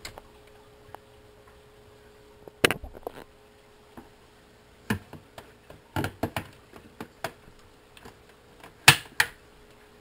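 Plastic clicks and knocks of a Hoover Platinum cordless stick vac's clear dust canister being unlatched, handled and snapped back into place, in a string of separate sharp clicks with the loudest snap near the end.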